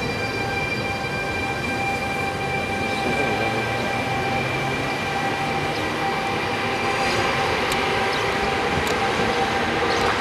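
Trenitalia E464 electric locomotive standing with its equipment running: a steady whine of several high tones, unchanging in pitch, over a low rumble, with a few faint clicks near the end.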